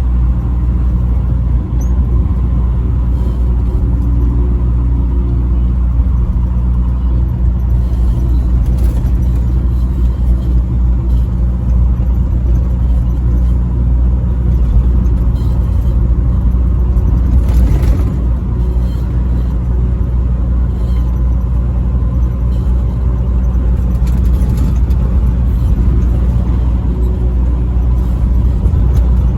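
Truck engine and road noise while driving on a highway: a steady low rumble with a faint steady whine above it.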